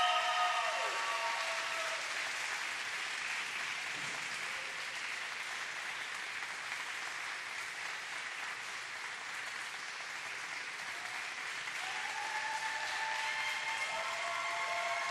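Audience applauding steadily for a figure skater at the end of her program, with the program music fading out in the first second.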